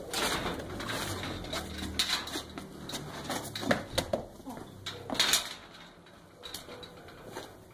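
Steel bar cell gate clanking and rattling as it is swung open and shut, with a scuffle of feet and bodies as a man is shoved inside. It is a string of sharp metallic knocks, the loudest a little past halfway.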